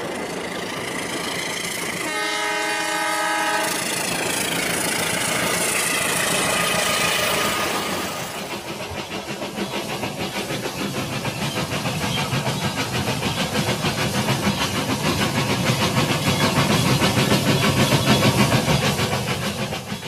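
Rail King toy train running along its track: a horn sounds one chord for about a second and a half, two seconds in. After that the wheels and motor keep up a fast, even clicking that grows louder as the train comes closer.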